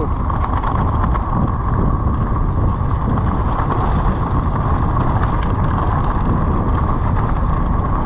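Steady wind rushing over the microphone with a low rumble and scattered short rattles, the ride noise of travelling fast over a rough, rocky trail.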